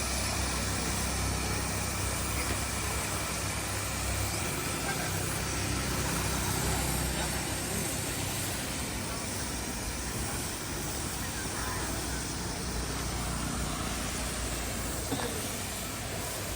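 Heavy diesel engine of earth-moving machinery running steadily, a low engine rumble over outdoor noise.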